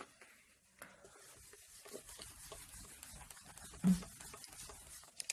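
Faint rubbing and light scuffing of a whiteboard eraser being wiped across the board, with a brief low sound about four seconds in.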